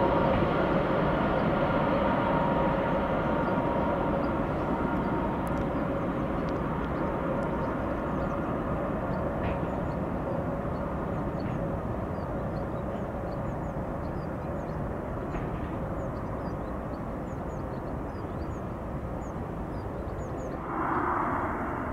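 Airbus A320-family jet airliner on final approach and landing: steady jet engine noise with a few held whining tones, slowly fading as the aircraft moves away down the approach and touches down. A brief louder swell comes near the end.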